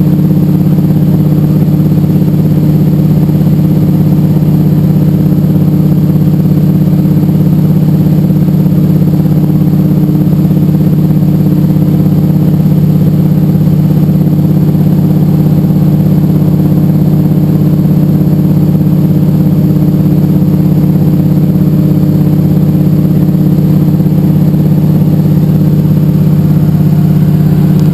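De Havilland Beaver's nine-cylinder radial engine and propeller droning steadily at cruise power, heard from inside the cockpit.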